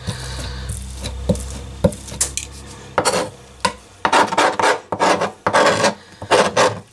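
A chef's knife tapping on a plastic cutting board a few times, then scraped across it in about five rasping strokes, pushing together chopped sticky black garlic.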